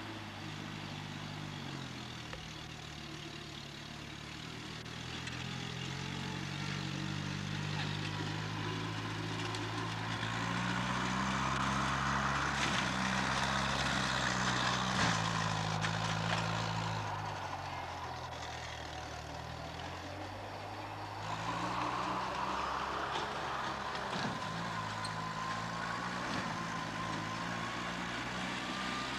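Small tractor engine running under load while pulling a rotary cutter through tall grass. Its pitch dips and rises, and it grows louder about ten seconds in and again from about twenty-two seconds, with a higher whine over it in those louder stretches.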